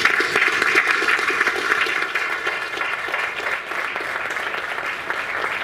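Audience applauding, many people clapping, the applause tailing off a little near the end.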